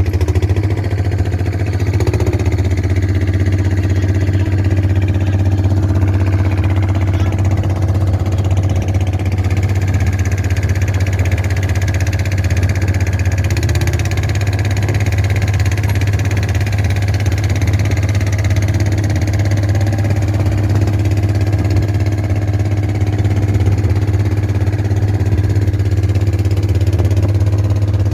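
Long-tail boat engine running steadily under way, a loud even drone whose pitch steps up slightly about halfway through.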